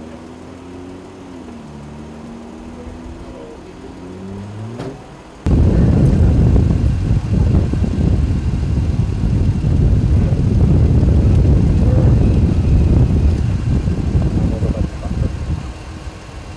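Faint voices over low street noise, then a sudden loud low rumble from about five seconds in that lasts about ten seconds and eases off near the end.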